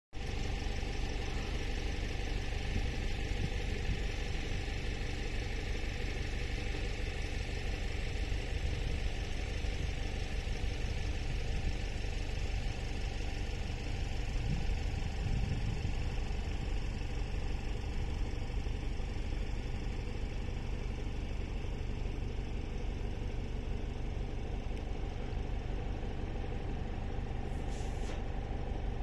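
Excavator's diesel engine idling steadily, a continuous low rumble with a constant hum.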